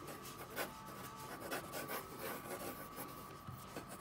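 Pencil drawing on paper: a run of short strokes, several a second, as loose gesture lines are sketched.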